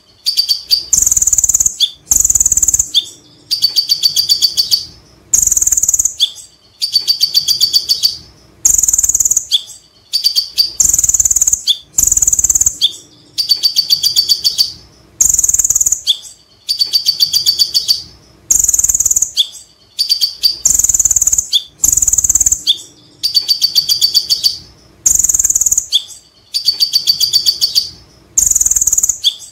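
Kolibri ninja (Van Hasselt's sunbird) singing continuously in loud, high phrases about a second long with short pauses between them. Bright whistled notes alternate with rapid chattering 'ngekek' trills in a steady, repeating pattern.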